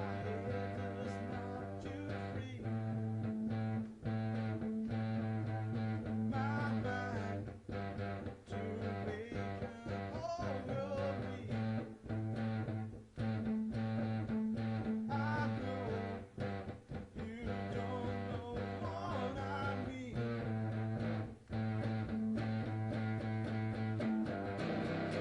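Guitar-based rock music with held low droning notes and frequent sharp plucked attacks, wavering melodic lines above.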